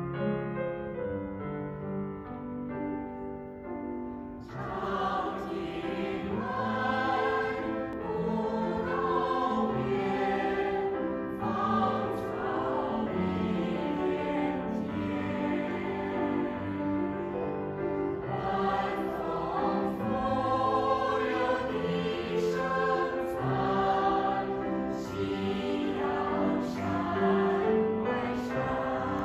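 A grand piano plays an introduction, then a mixed choir of women's and men's voices comes in singing about four seconds in and carries on.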